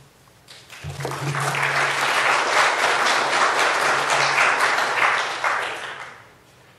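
Audience applauding: clapping begins about half a second in, builds to a steady level, and dies away about six seconds in.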